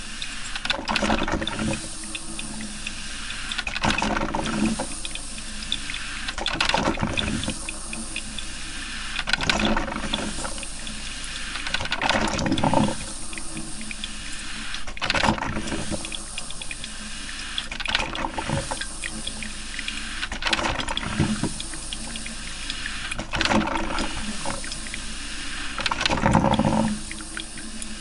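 Coffee maker brewing: hot water gurgling and spluttering with a steady hiss, swelling into louder watery surges every two to three seconds.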